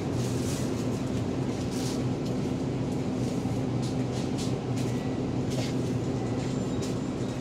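Steady low mechanical hum of supermarket refrigeration and ventilation, with a few short clicks and rustles.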